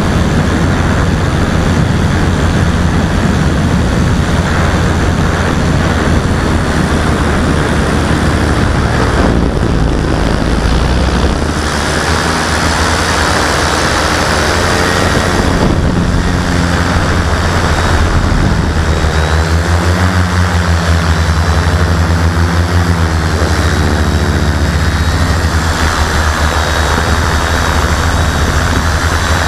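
Talon quadcopter's four 360 KV brushless motors spinning 17x5 carbon-fibre propellers, a steady loud drone heard close from the onboard camera. From about halfway through, the pitch wavers up and down as the throttle changes.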